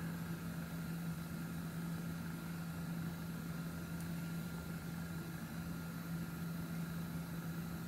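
A steady low hum with a faint thin whine and hiss over it, unchanging throughout: background room or recording hum.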